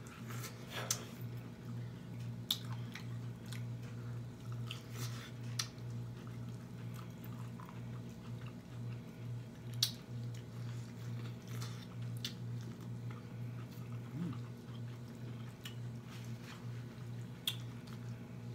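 Close-up chewing and wet lip smacking while eating, with scattered sharp mouth clicks over a steady low hum.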